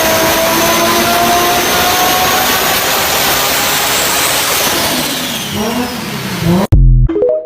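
Toyota 2JZ straight-six engine running at high revs, its pitch sagging slowly. Near the end the sound cuts off abruptly, then a brief loud low blast follows before it stops.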